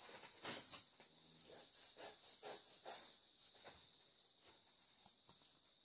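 Very faint scratching of a ballpoint pen on paper, a few short strokes in the first three seconds, over a thin steady high whine; otherwise near silence.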